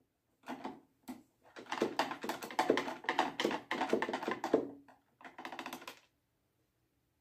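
Phillips screwdriver turning screws out of an air fryer's plastic top housing: a run of small, rapid clicks and scrapes. A quicker burst of clicks follows near the end.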